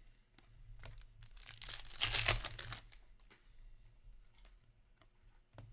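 Trading cards handled by hand: a rustling scrape of cards sliding against each other, loudest about two seconds in, with light clicks as single cards are flipped.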